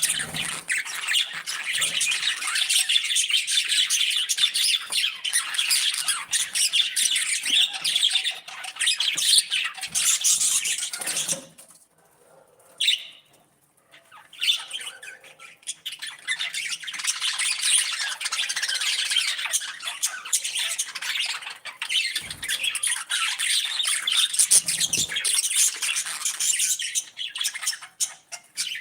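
Budgies and parrots chirping continuously in a dense chorus of many overlapping calls. The chorus breaks off briefly about twelve seconds in, with a single call in the lull, then resumes.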